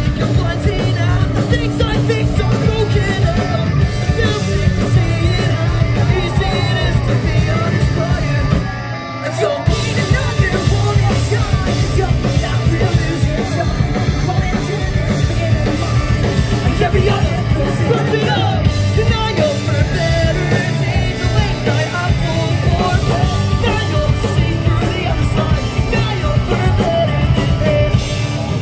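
Live pop-punk band playing loudly, electric guitars and sung vocals heard from within the crowd; the sound dips briefly about nine seconds in.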